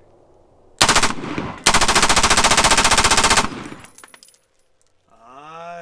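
Short-barrelled AR-15 firing full auto: a short burst about a second in, then a longer burst of just under two seconds of rapid, evenly spaced shots, with the report echoing away after it.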